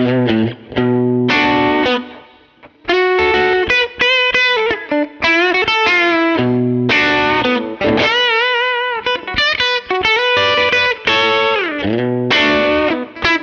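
Overdriven electric guitar: an alder Telecaster with Busch Arctic Wolf Alnico 5 pickups, played through a Muleskinner amp with a One Control Honey Bee overdrive. It plays a phrase of single notes and chords, with a brief gap about two seconds in and a held note with vibrato about eight seconds in.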